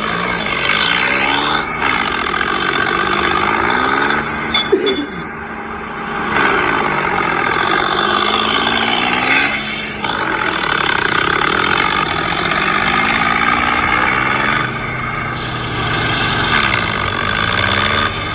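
A loud vehicle engine revving, its pitch rising and falling several times as the throttle is opened and eased off.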